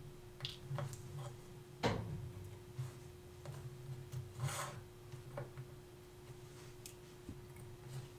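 Faint, scattered clicks and taps of steel tweezers on the parts of a Seiko 6139 chronograph movement and its plastic holder as a wheel is lifted out and set down, with a brief scrape about halfway through. A faint steady hum runs underneath.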